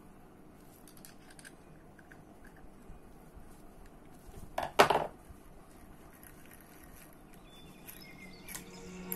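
Faint metal clicks of a screwdriver working the handle screw of a Daiwa Seiko Coronet 5 fishing reel, with one short sharp metallic clatter a little past halfway.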